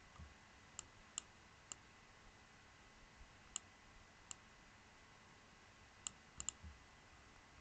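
Computer mouse clicking: about eight short, sharp clicks spaced irregularly over a near-silent room, including a quick double click near the end.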